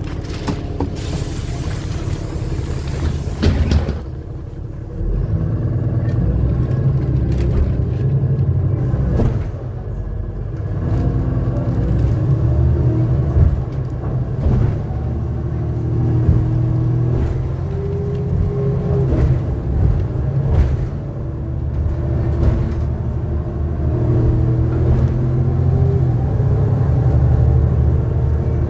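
Ride inside a NefAZ 5299 city bus: a steady low engine drone and road rumble, with the engine note rising and falling as the bus speeds up and slows, and scattered light rattles and clicks. A rushing hiss covers the first few seconds.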